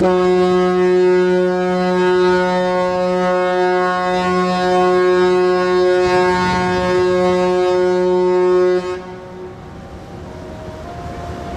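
The Ogasawara Maru ferry's horn sounding one long, steady blast as the ship leaves port, lasting about nine seconds and then cutting off sharply.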